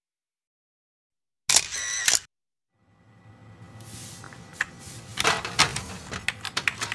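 A short sharp sound effect of under a second, then, after a brief gap, computer keyboard typing and clicking fading in, growing busier toward the end.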